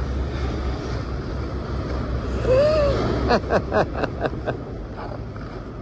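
A dog vocalizing in answer to being coaxed to 'talk'. It gives one rising-and-falling whine-like call about halfway through, then a quick run of about six short yips, over the steady low rumble of nearby highway traffic.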